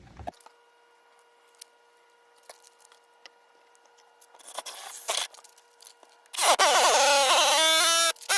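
A power tool running in two loud bursts about six and a half seconds in, its pitch wavering as it cuts a hole into a plastic ice cooler. A short scraping sound comes a little before.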